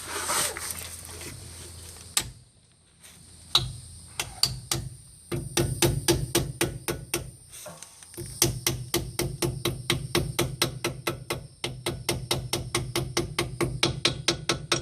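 Music with a fast, steady percussive beat and a low bass line that drops out briefly a couple of times, after a short burst of noise at the very start.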